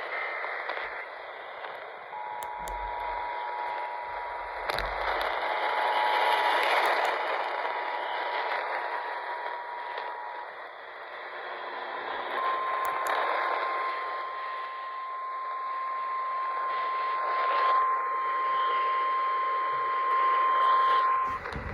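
Emergency alert tones heard through heavy radio static. The two-tone EAS attention signal sounds for about eight seconds. After a short gap, a single steady NOAA Weather Radio warning alarm tone sounds for about nine seconds, which marks a warning about to be read.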